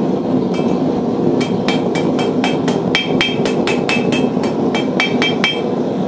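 Blacksmith's hand hammer striking a small bar of hot steel on the anvil face in a quick, steady run of blows, about four to five a second, each with a bright metallic ring. The run stops shortly before the end.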